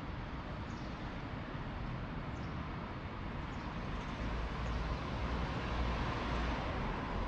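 Street ambience with a car driving past: its tyre and engine noise swells from about four seconds in. Faint high chirps repeat every second or so.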